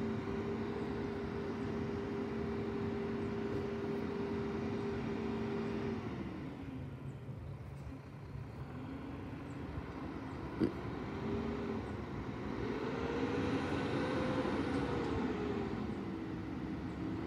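Yard waste truck's engine running with a steady hum for about six seconds, then dropping away in pitch. Later it rises and falls in pitch as it revs, with one sharp knock about ten seconds in.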